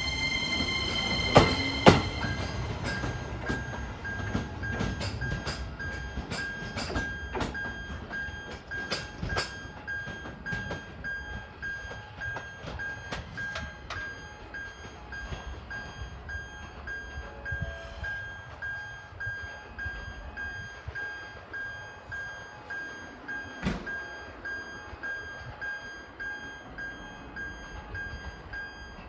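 Keisei 3050-series electric train (set 3056) running out over pointwork, its wheels clicking sharply over the rail joints and crossings, with a high held tone in the first two seconds. Behind it, an electronic warning signal beeps steadily about twice a second, and a second train comes in over the points with more clicks.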